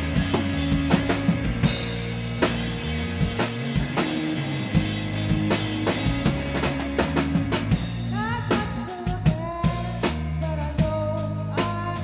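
Indie rock band playing live: electric guitars over a drum kit keeping a steady beat with cymbals. A woman's singing voice comes in about two-thirds of the way through.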